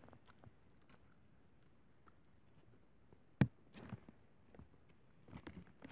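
The shell of a hollow chocolate Easter egg snapping once as it is bitten, a single sharp crack about midway, followed by a few faint soft sounds.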